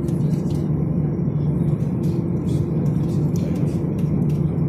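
Airliner cabin noise at takeoff, heard from inside the cabin: a steady low drone of the jet engines and rushing air with a constant hum, and faint light ticks of cabin rattle over it.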